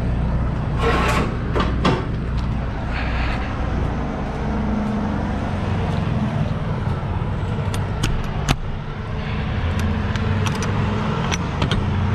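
Diesel semi-truck engine idling steadily, with a few sharp metallic clanks about a second in as the trailer's tandem slide release handle is pulled, and scattered metal clicks later on.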